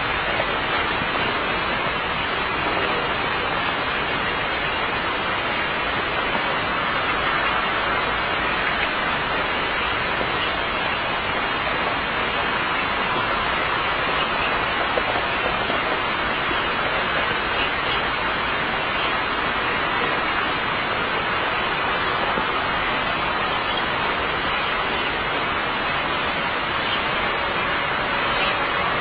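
A steady, even hiss-like noise with no distinct events.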